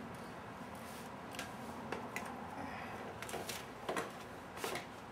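Scattered light clicks, knocks and rustling from hands handling tools, cans and a shop rag at a workbench, with about five small knocks spread through.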